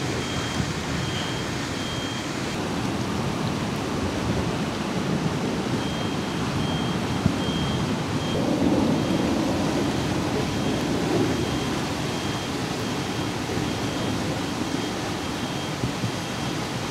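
Heavy rain falling steadily onto a flooded street. A faint high electronic beep repeats at an even pace in the background for much of the time.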